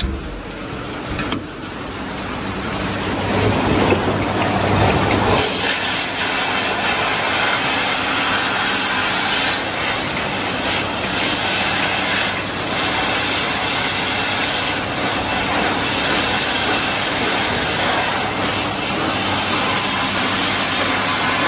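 Sandblasting cabinet in use: the abrasive blast gun hisses steadily as grit strips old paint and rust from a brake caliper. The hiss builds over the first few seconds and runs loud and steady from about five seconds in, over a steady low hum. A latch clacks at the very start.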